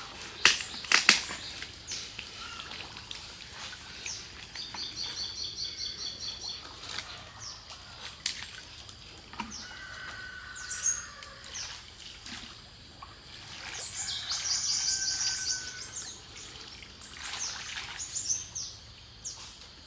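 Small birds chirping, with two runs of rapid high trills, one a few seconds in and another near three-quarters of the way through; a few sharp clicks in the first second.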